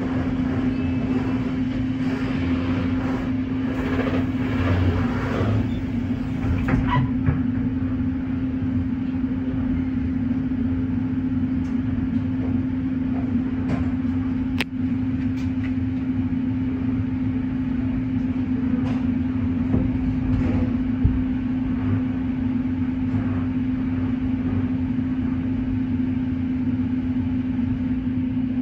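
Passenger train running, heard from inside the carriage: a steady rumble with a constant low hum and occasional short clicks.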